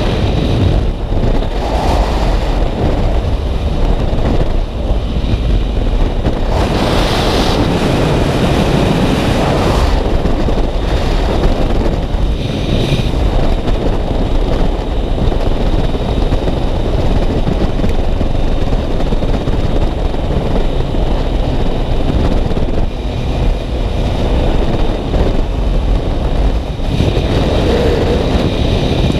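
Wind rushing over the microphone of a riding Yamaha MT-09 motorcycle, with the bike's engine running underneath, steady and loud throughout.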